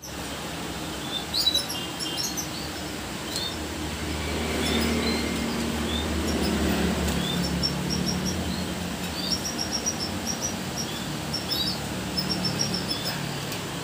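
Caged canaries chirping: many short, high chirps, one after another, over a low steady hum.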